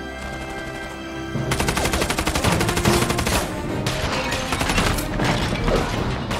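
Rapid automatic gunfire, a dense volley of shots starting about a second and a half in, over the film's music score.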